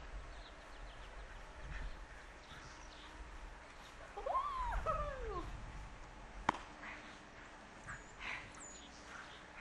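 Dog giving a few short whining yelps that rise and fall in pitch about four to five seconds in, followed by one sharp click.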